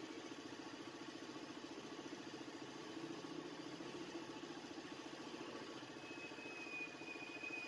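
A faint small engine idling steadily, with a rapid even pulse. A thin high whine joins about six seconds in.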